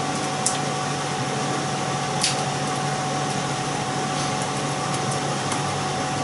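Cauliflower pieces broken by hand and dropped into a saucepan of chicken stock, giving a couple of soft clicks, about half a second and two seconds in, over a steady hum.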